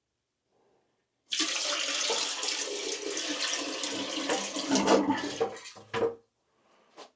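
Water rushing into a camper van toilet bowl for about four and a half seconds, starting suddenly about a second in, then a single thump just after it stops.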